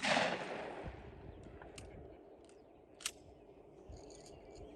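The tail of a gunshot's report at a shooting range, a noisy rush fading away over about a second, then a single sharp crack about three seconds in.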